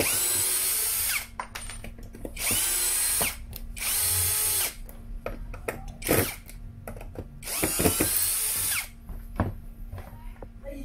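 Toyoko 16.8 V cordless drill driving screws into a wooden block in four short bursts, the motor spinning up quickly at the start of each. There are a few sharp knocks between the bursts. The drive is very fast.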